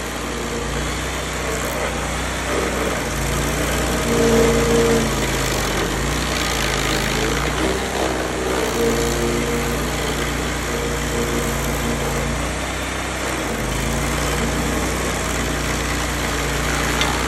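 Vermeer SC252 stump grinder's upgraded 35 hp Kohler engine running hard, its pitch dropping and recovering several times as the load changes.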